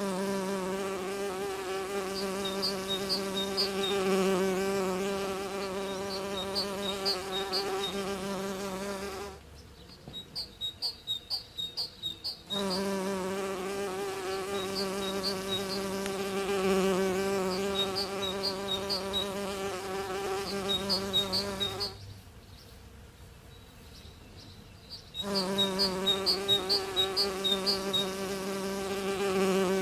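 A bee buzzing steadily with a slightly wavering pitch, cutting out twice for a few seconds and then resuming. High, short chirping trills repeat in the background.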